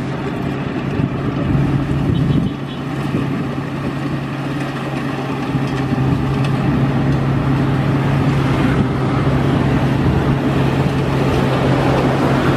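Yanmar AW70V rice combine harvester running steadily under load as it cuts and threshes rice in a muddy paddy: a constant engine hum mixed with the machinery's running noise.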